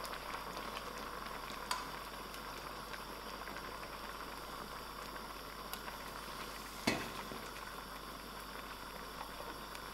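Pot of sugar beans boiling with a steady bubbling hiss, as raw potato pieces go in. Two short knocks break it, the louder about seven seconds in.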